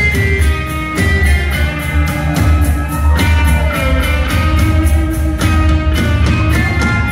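Hard-rock band playing live, electric guitar over heavy bass and a steady drum beat, loud and dense.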